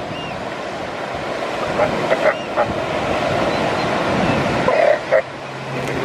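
Northern elephant seals calling over steady surf: a few short calls about two seconds in and again near five seconds, then a low, drawn-out call from the mother starting near the end.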